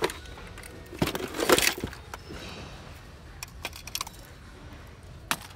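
Cantilever trays of a plastic tackle box being pulled open, with a burst of clattering about a second in as the metal lures and hooks rattle in their compartments, then scattered small clicks and ticks as the lures are handled.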